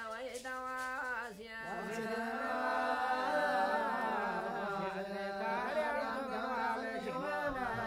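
Traditional vocal music: a singing voice with wavering, ornamented pitch, over a steady held drone at first, turning into a fuller, denser vocal sound about one and a half seconds in.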